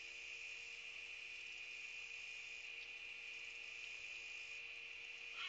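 Steady, faint chorus of trilling insects, most likely crickets, a continuous high-pitched hum with a faint low electrical tone under it. A brief sharper sound comes right at the end.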